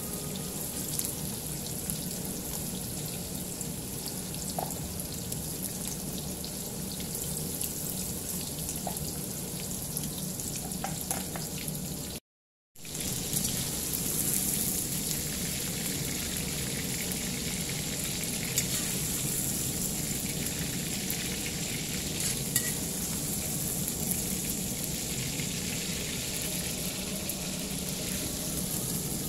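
Chicken wings deep-frying in hot oil, a steady sizzle with occasional small crackles. It drops out briefly about twelve seconds in, then carries on.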